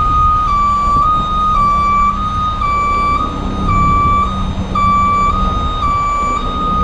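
Garbage truck's electronic warning alarm sounding a continuous two-tone warble, switching between two close pitches about every half second, over the low running of its Cummins ISL diesel engine.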